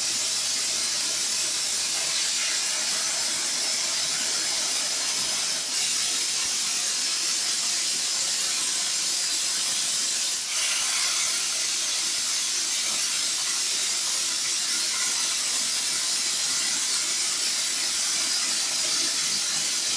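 Air plasma cutting torch on an ArcDroid CNC robot cutting steel plate: a steady hiss of the arc and its compressed air, dipping very briefly twice.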